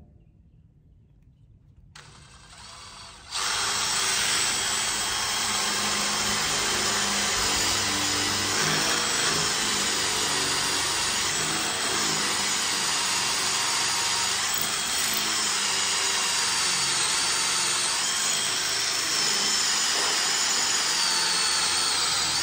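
Cordless drill with a 5/16-inch bit boring through metal. It comes in faintly about two seconds in, then runs steadily under load from a little over three seconds on.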